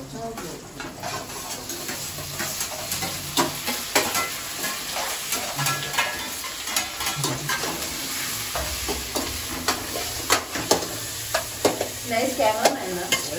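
Metal spoon stirring and scraping food frying in a metal pan on a gas stove: a steady sizzle with frequent sharp clicks of the spoon against the pan.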